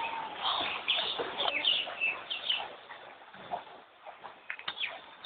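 Birds calling: many short, high chirps, several falling in pitch, busy in the first half, thinning out about three seconds in and picking up again near the end.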